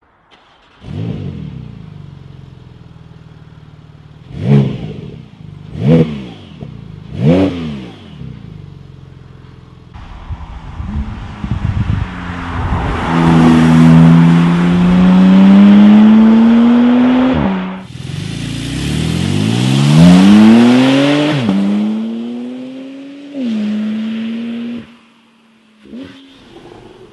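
Porsche 991 Turbo S twin-turbo flat-six through a titanium aftermarket exhaust with high-flow sports catalytic converters: it starts with a flare about a second in, settles to idle, and is revved sharply three times. It then pulls hard with rising pitch, drops suddenly and pulls again, before easing off to a steadier note and a couple of short revs near the end.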